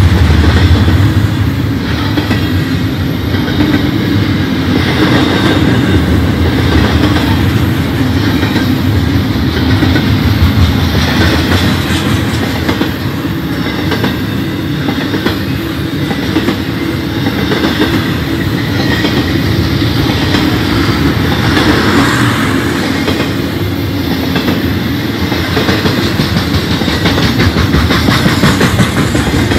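Loaded intermodal freight cars, double-stack container well cars and then trailer-carrying cars, rolling steadily past: continuous noise of steel wheels running on the rails.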